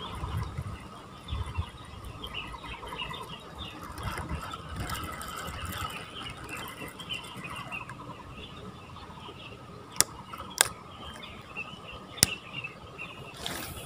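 Small birds chirping and twittering continuously, with three sharp clicks in the last few seconds.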